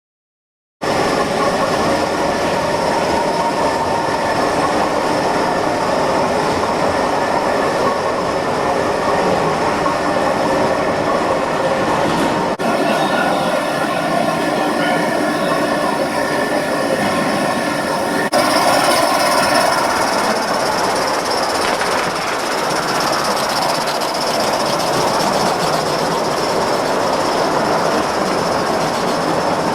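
A train running on rails with steady wheel and track noise and high tones that hold through. It starts suddenly about a second in and changes abruptly twice, about 12 and 18 seconds in.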